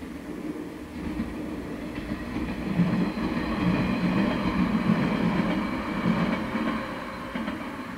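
A train passing on the line: the sound of its wheels on the rails swells over the first few seconds, is loudest in the middle and fades toward the end.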